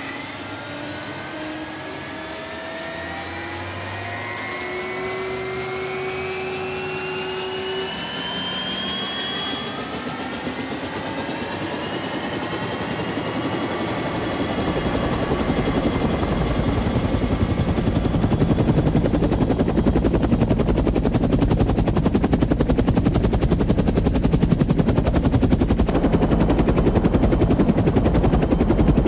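Helicopter starting up: the turbine spools up with several rising whines, then the rotor blades beat fast and grow louder from about halfway through.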